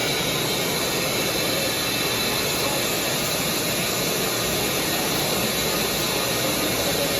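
Shop-air-powered coolant barrier tool running, compressed air rushing through it in a steady hiss as it holds the cooling system under a light vacuum and draws excess coolant off into a bucket.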